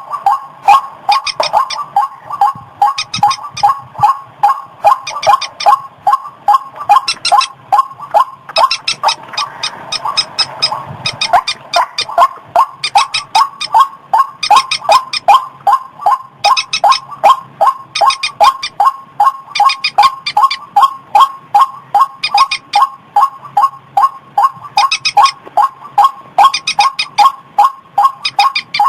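White-breasted waterhen (ruak-ruak) calling in a long, fast, even run of repeated notes, several a second, with higher notes breaking in about once a second. This is a played-back lure recording meant to draw waterhens in.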